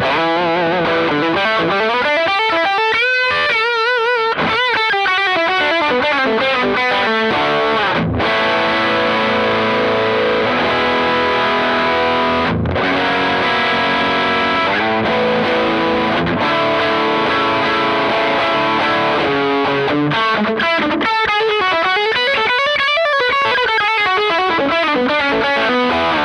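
Distorted electric guitar through a Fender Hot Rod Deluxe IV tube combo amp on its overdrive channel, pushed by a Maxon OD808 overdrive pedal with its gain all the way down and its volume and tone all the way up. It plays a mix of chords and lead lines, with wide string bends and vibrato near the start and again near the end.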